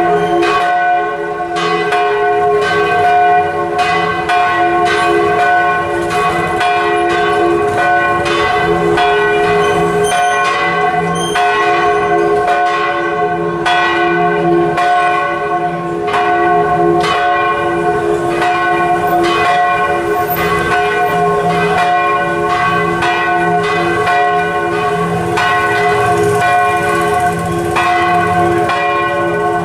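Church bells rung in full swing, a large bell swinging out on its headstock in the belfry, striking again and again in a continuous festive peal with the strokes of the bells overlapping and their tones ringing on between strokes.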